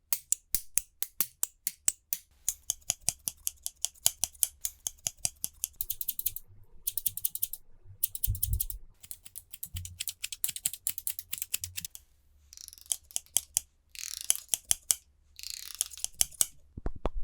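Haircutting scissors snipping in rapid runs of several cuts a second, with short pauses between runs. Near the end there are three hiss-like swishes of about a second each.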